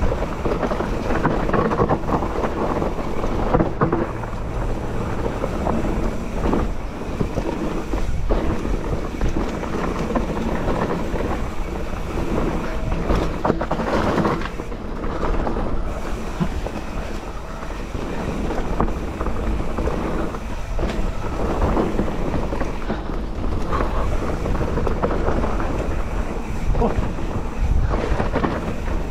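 Mountain bike riding fast down a dirt forest trail: a steady rumble of tyres and rattling bike, with wind buffeting the microphone.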